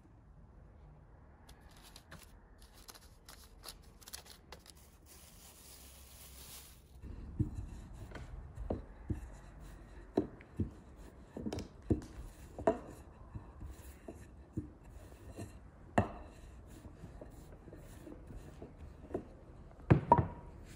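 Faint rustling of a plastic sheet for the first several seconds. Then a wooden rolling pin rolls out dough on a board, with irregular knocks and thumps as the pin strikes the board, the loudest near the end.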